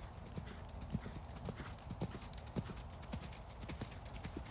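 Hoofbeats of a dapple-grey horse cantering on a sand arena: a steady run of dull thuds, several a second.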